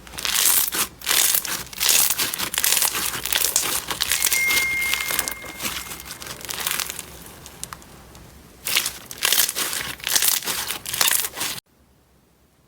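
Slime being squeezed and worked by hand, giving dense crinkling and crackling in uneven surges, quieter for a couple of seconds midway. It cuts off suddenly near the end.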